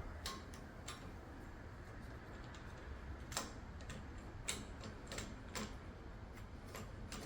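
Faint, scattered clicks and taps of a plastic dishwasher top-rack roller wheel and its mount being pushed and slid off the rack, the clearest about three and a half seconds in.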